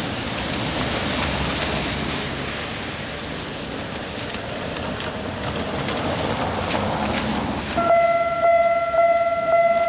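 Steady hiss of road traffic, then about eight seconds in a Japanese level-crossing warning bell starts ringing, a loud pitched tone pulsing about twice a second.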